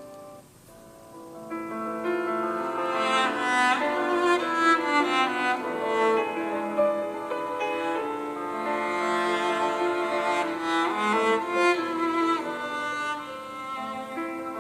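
Samsung Galaxy S20 ringtone: a short instrumental melody in bowed strings with piano. It comes in about a second in, after the previous tone has faded out.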